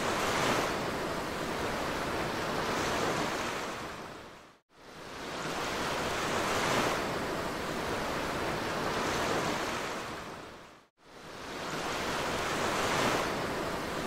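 Ocean surf: a steady rush of waves breaking and washing over rocks. The sound fades away to silence and swells back up twice, about five and eleven seconds in.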